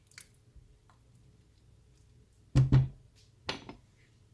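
A spatula knocked against the rim of a frying pan: two sharp knocks in quick succession a little past halfway, then a weaker double knock about a second later.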